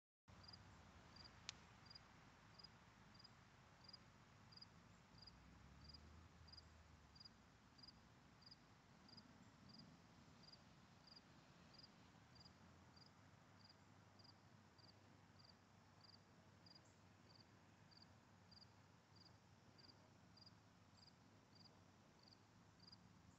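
A cricket chirping faintly, a short high chirp repeated evenly about one and a half times a second. A single sharp click about a second and a half in.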